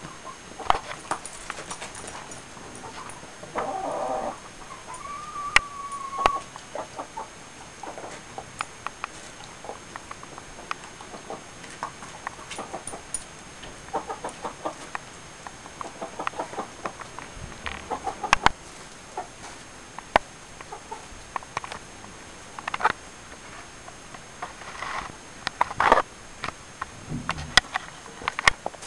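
Chickens clucking in short calls scattered throughout, with a few longer calls about four to six seconds in, among sharp clicks.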